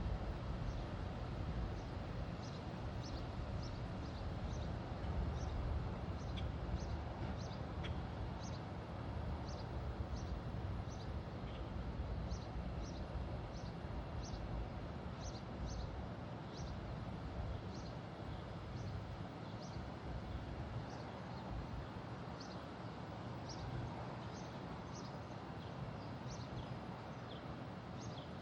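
A bird's short, high chirps repeated about one or two a second, over a steady outdoor noise with a low rumble.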